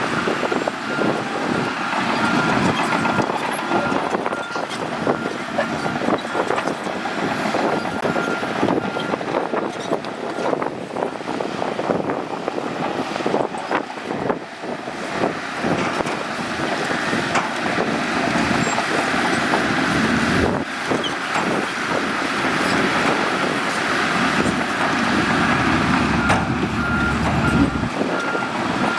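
Shantui bulldozer's diesel engine running under load, with scattered clanks as it works. A reversing alarm beeps in the first second and again over the last few seconds.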